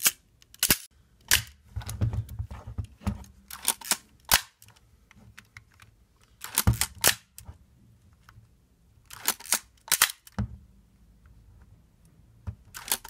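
Nikon F focal-plane shutter and mirror being fired again and again, with the film-advance lever wound between releases. It makes a series of sharp mechanical clicks, some coming in pairs up to about a second apart as the speed dial is set to slow speeds. This is a function test of the shutter at different speeds after its repair and clean-lube-adjust.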